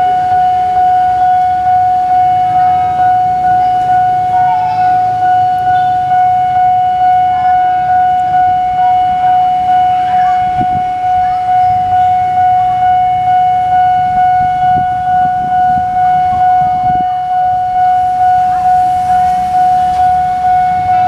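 Railway level-crossing warning bell ringing steadily, one unchanging tone struck about twice a second. Under it is the low rumble of an electric commuter train approaching.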